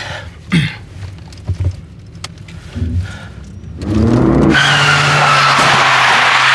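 Volvo 740 engine revving hard about four seconds in, then loud, steady tyre squeal as the car slides sideways in a skid turn.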